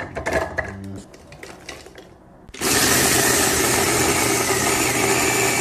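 A few clicks and knocks of the blender jar being handled, then about two and a half seconds in a single-serve blender motor starts abruptly and runs steadily, chopping fast food into a mush.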